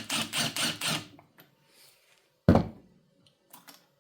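Ratcheting socket wrench clicking in a quick, even run for about a second as it works the brake reservoir cover screws, then one loud thunk about two and a half seconds in and a couple of light clicks near the end.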